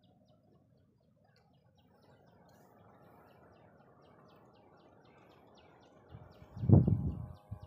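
Faint outdoor background with soft high bird chirps repeating about three times a second. About six seconds in comes a loud, low buffeting rumble on the microphone lasting about a second.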